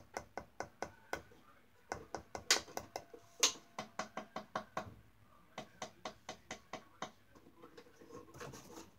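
A cockatoo's beak rapidly tapping and knocking on the door of a small wooden box, sharp taps about four or five a second in runs, broken by brief pauses about a second and a half and five seconds in.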